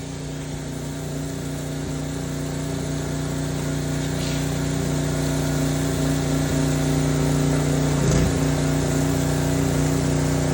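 Mi-T-M gas pressure washer's engine running steadily under load, growing gradually louder.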